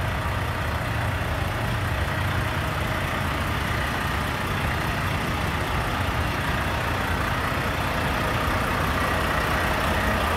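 Semi-truck diesel engine idling steadily, a constant low rumble.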